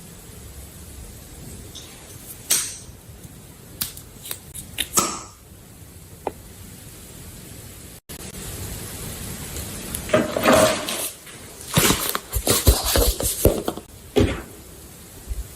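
Handling noises: scattered clicks and taps, then a busier run of clattering and rustling in the second half.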